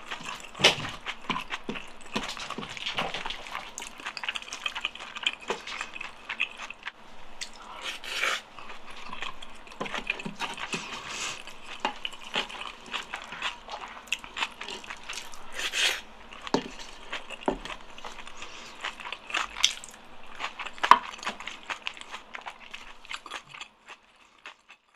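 Close-miked eating sounds: chewing, lip smacks and wet mouth clicks of someone eating jjajang (black-bean-sauce noodles and rice), with a few louder smacks. The sounds fade out near the end.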